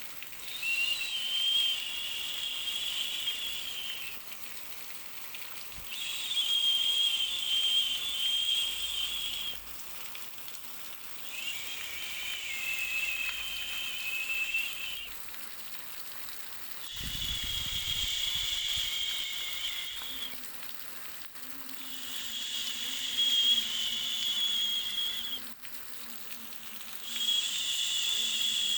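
Sleep-aid noise track: a constant hiss with a high, slightly wavering whistle laid over it. The whistle comes and goes about every five to six seconds, sounding for three to four seconds each time.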